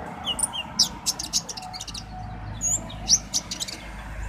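Konin songbird singing: quick, high, sharp chirps and short trills in scattered phrases, over a faint low background rumble.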